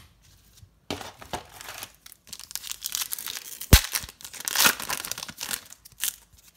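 Foil trading card pack wrapper crinkling and tearing open by hand, with a single sharp snap about halfway through.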